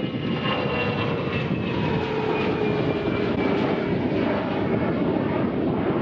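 Gulfstream IV business jet's twin Rolls-Royce Tay turbofans at takeoff power as it climbs away: a steady loud jet noise with whining tones that slowly fall in pitch.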